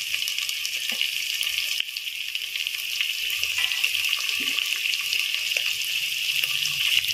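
Onion, green chilli and tomato frying in hot oil in a steel pressure cooker: a steady sizzling hiss with fine crackles.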